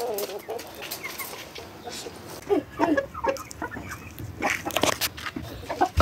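Chickens clucking in a string of short calls, bunched between two and a half and three and a half seconds in, over scattered light clicks and rustles.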